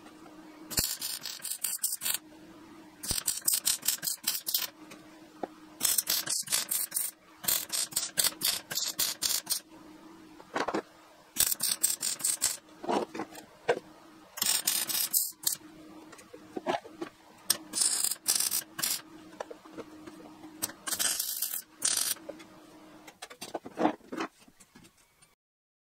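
MIG welder stitch-welding steel radiator support brackets: about ten short runs of sizzling arc crackle, each a second or two long, with pauses between the stitches. A steady low hum fills the pauses.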